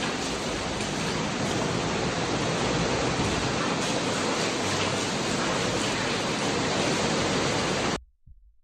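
Steady rushing noise of water from the flooding, cutting off suddenly near the end.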